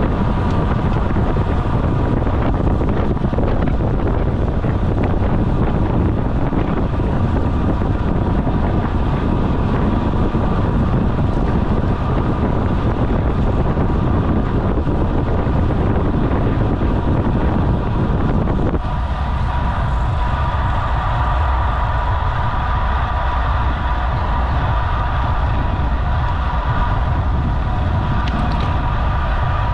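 Wind rushing over the camera microphone of a bicycle racing at speed, a loud steady roar. About 19 s in, the lower part of the rush drops away suddenly and a steady mid-pitched hum is left more exposed.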